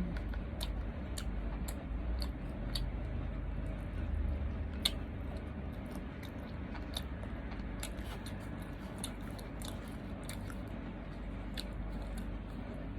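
A person chewing and eating close to the microphone, with scattered small clicks and smacks of the mouth throughout.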